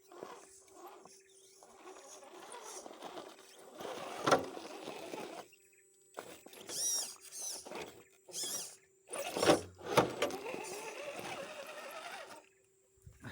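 Electric RC rock crawler working over rough ground: the brushed motor and gears whine, rising and falling in pitch, while the tyres scrabble on dirt and rock, with a few sharp knocks.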